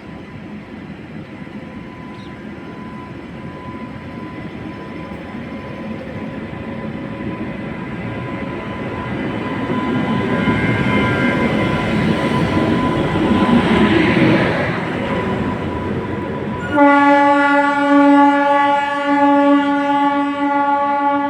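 Indian Railways train pulling out, its rumble and rail noise growing steadily louder as it rolls by. About seventeen seconds in, the locomotive horn starts suddenly and sounds one long, steady blast.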